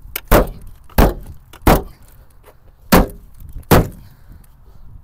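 Five hard blows from a hand tool against the sheet-metal body of a Ford Focus estate, denting its tailgate. The bangs come in two quick runs, three and then two, with a short pause between.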